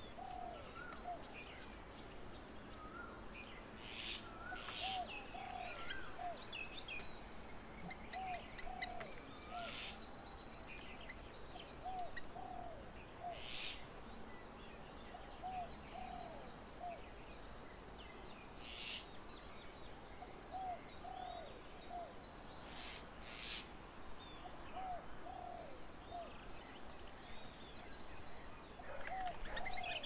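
A bird repeats a hooting phrase of about three notes roughly every four seconds, while other small birds chirp higher up.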